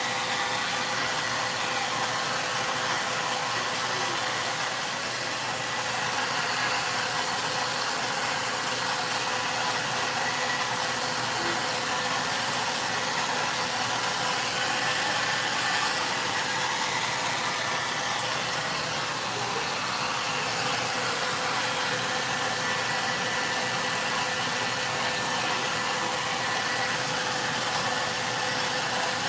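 VONE handheld hair dryer blowing steadily on high airflow, a constant rushing hiss with a faint motor whine.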